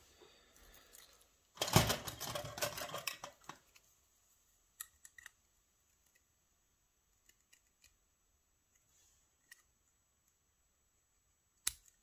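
Small metal clicks from handling a euro-profile lock cylinder and circlip pliers while taking off the retaining clip on the plug. A short clattering run of clicks comes about two seconds in, then faint scattered ticks, and one sharp click near the end.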